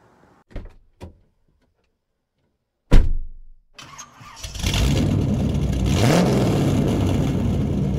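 A sharp loud hit about three seconds in, then a car engine starting and running loudly, with a brief rising rev about two seconds later: an engine-start sound effect.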